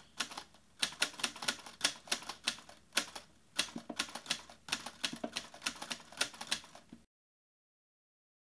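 Typewriter typing sound effect: a quick, irregular run of key clacks in time with on-screen text being typed out, stopping abruptly about seven seconds in.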